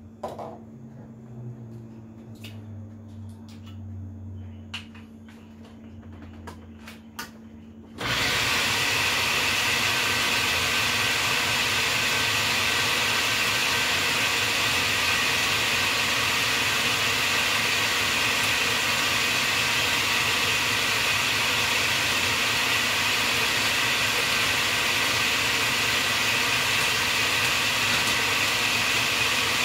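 Countertop blender switched on about eight seconds in and running steadily, blending pesto while olive oil is poured in. Before it starts, a few small clicks and knocks of handling.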